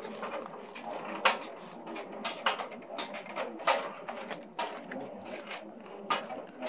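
Clear plastic bag crinkling and rustling as plastic tubing is pulled out of it and handled, with a few louder sharp crackles about a second apart.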